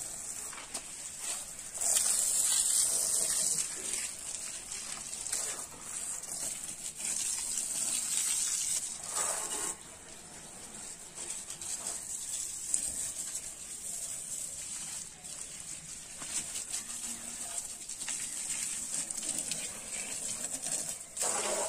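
Water from a garden hose spraying and splashing onto a tractor's bodywork and tyres: a continuous hiss that swells and fades as the stream moves, loudest a couple of seconds in.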